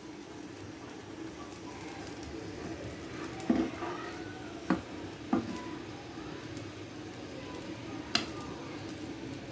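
Metal spoon stirring a watery chicken curry in a pan, knocking against the pan four times, over a steady low simmer.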